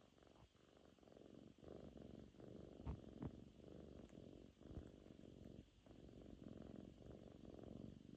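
A kitten purring faintly, the purr swelling and dipping in a steady rhythm, with a few soft clicks near the middle.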